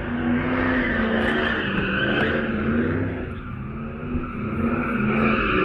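A car drifting in circles: engine held at high revs with tyres squealing, the sound swelling and fading as the car comes round, dipping about three and a half seconds in and building again near the end.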